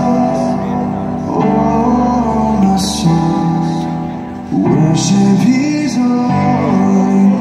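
Live band music: a man singing over keyboard chords, with drums and a few cymbal crashes.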